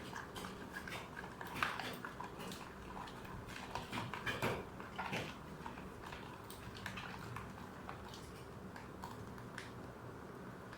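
Faint, scattered clicks and scrapes of stirring a slime activator of water and an added solution in a container, mixing until the bubbles are gone. The taps come more often in the first half and thin out later.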